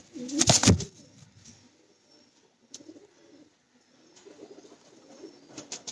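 Domestic pigeons cooing faintly and repeatedly, with a short loud rustle about half a second in.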